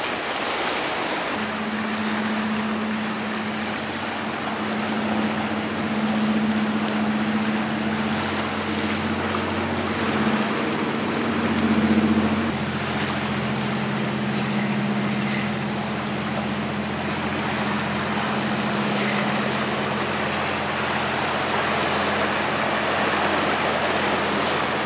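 A steady low engine hum over a constant wash of sea and wind. The hum sets in a second or so in and changes tone about halfway through.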